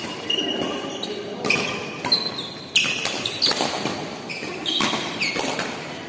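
A badminton doubles rally: rackets strike the shuttlecock in sharp cracks every second or so, while shoes squeak briefly and high-pitched on the court mat as the players move.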